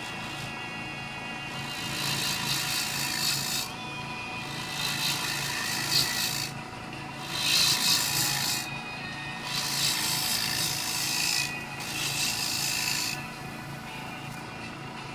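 A wood lathe runs with a steady hum while a bowl gouge cuts the outside of a spinning cherry bowl. The cut comes as a hissing scrape in about five passes of a second or two each, then stops near the end.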